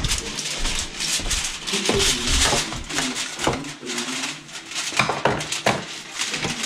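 Aluminium foil crinkling and rustling as a long sheet is handled and spread out flat, with irregular crackles throughout.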